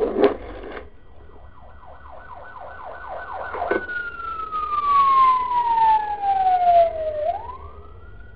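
Cartoon sound effects. A short noisy burst with a sharp click opens, followed by a run of quick rising chirps at about five a second. Then comes a snap and a long falling whistle under a rushing hiss, which turns sharply back up into a rising whistle near the end.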